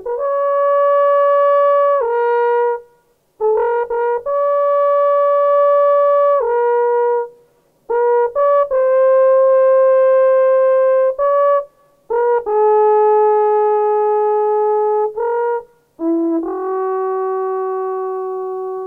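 Fujara trombita, a long Slovak wooden shepherd's horn without finger holes, blown in five phrases of overblown natural-harmonic notes: each opens with a few quick short notes and settles into a long held tone, usually stepping down to a lower note at its end. The last phrase holds the lowest note.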